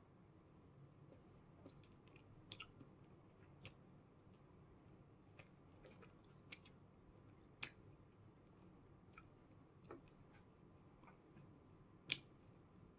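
Near silence broken by faint, scattered mouth clicks and smacks from someone eating a fresh strawberry; the sharpest click comes near the end.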